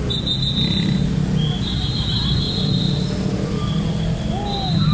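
Motor scooter engines running in street traffic, a steady low drone while riding along, with short high thin tones coming and going above it.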